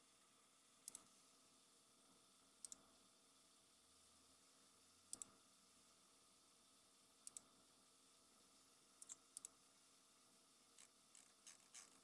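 Faint computer mouse clicks, mostly in quick pairs every two seconds or so, with a run of lighter clicks near the end.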